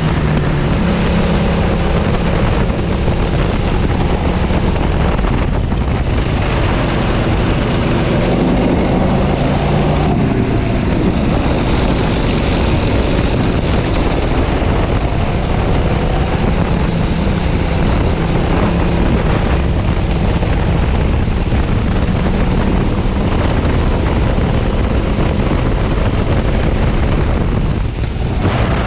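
Go-kart engine running hard, heard from the driver's seat, its pitch rising and falling as the throttle comes on and off through the corners.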